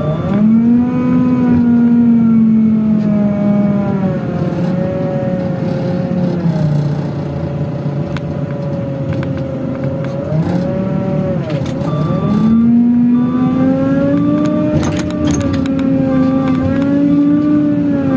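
JCB wheel loader's diesel engine under hydraulic load, its pitch rising and falling as the boom lifts and the bucket tips a load of rocks into a dump truck. A few knocks come as the load drops, then a reverse alarm beeps steadily as the loader backs away.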